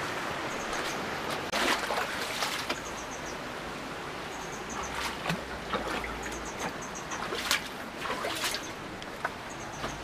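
Steady rush of a rocky mountain stream, with scattered short crunches and knocks of footsteps on gravel and rock. Faint short high chirps repeat every second or two.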